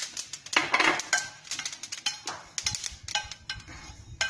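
A spoon stirring and scraping flaxseeds as they dry-roast in a stainless steel pan, making irregular clicks and rattles. The crackling of the seeds is the sign that they are roasted.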